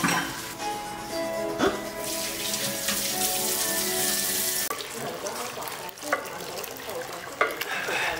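Kitchen tap running into a stainless steel sink, starting about two seconds in and shutting off suddenly a little past the middle. A few sharp knocks follow in the second half.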